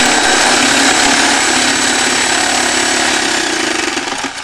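A machine running steadily, loud and noisy with a thin high whine, dying away near the end.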